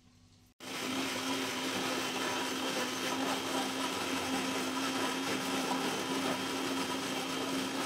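Electric mixer grinder running steadily, its steel jar grinding spinach, garlic, ginger and tomato into a paste. The motor noise starts suddenly about half a second in and then holds an even, steady hum.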